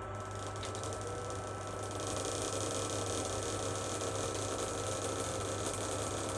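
Wall-climbing robot's suction fan motor running steadily with a hum and hiss, holding the robot against a door; it gets louder about two seconds in.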